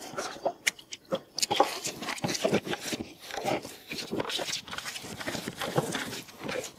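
Hands mixing and kneading crumbly fishing dough bait in a large bait basin: an irregular run of soft rubbing and crackling as the bait is pressed and rubbed together.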